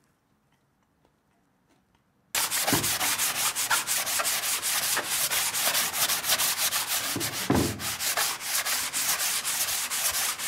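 Near silence for about two seconds, then sandpaper rubbing on wood starts abruptly: hand sanding with quick, rhythmic back-and-forth strokes.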